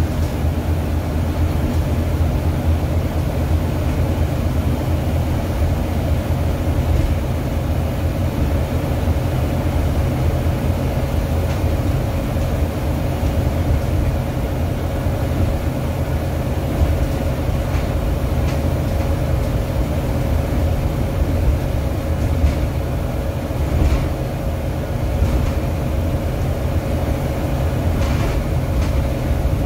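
Volvo B9TL Enviro 400 double-decker bus on the move, heard from the upper deck: a steady low drone of the six-cylinder diesel engine and road rumble, with a steady whine over it. A few light rattles come in the second half.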